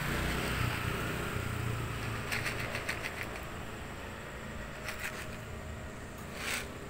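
Steady low rumble of distant traffic, with short runs of crackly rustling about two and five seconds in and a brief hissing burst near the end.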